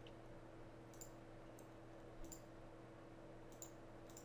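Faint computer mouse clicks, about six single clicks with two close together about two seconds in, over a steady low electrical hum.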